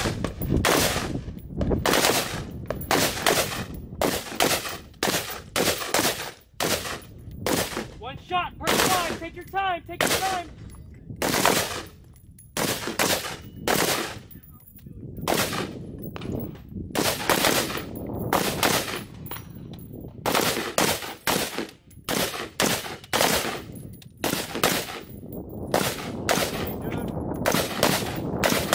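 AR-15-style carbines firing single shots, many of them with short, uneven gaps, sometimes from two shooters at once.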